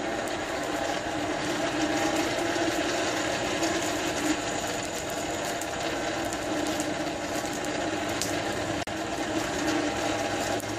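Hand-cranked Champion 400 geared forge blower being cranked steadily, its gearing giving a continuous whirring hum as it pushes air into a freshly lit coal fire.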